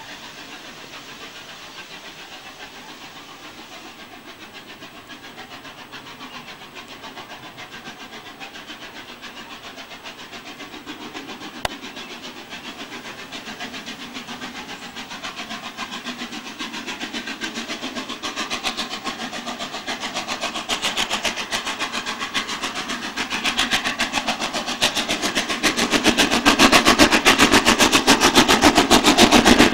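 Three-cylinder Peppercorn A1 Pacific steam locomotive 60613 Tornado working hard up a bank with a train, its rapid, even exhaust beats growing steadily louder as it approaches.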